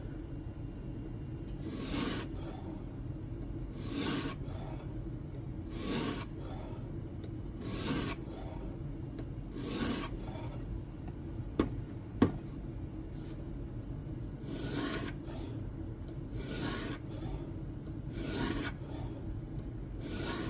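A 120-grit diamond plate rasping along the N690 steel edge of a knife in a guided sharpening system, one push stroke about every two seconds. There are five strokes, two sharp clicks near the middle, then about four more strokes.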